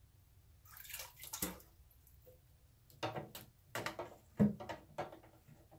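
Water splashing and dripping in irregular bursts from a submersible aquarium pump and its tubing as they are handled.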